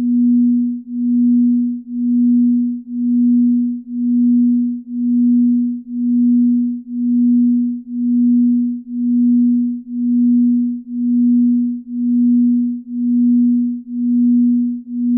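Binaural-beat sleep tone: a single low, pure tone that swells and fades evenly about once a second.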